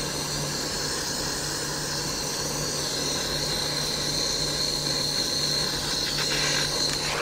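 Handheld gas torch burning with a steady hiss as its flame shrinks heat-shrink tubing over a motorcycle ignition wire. The hiss turns a little brighter about three seconds in.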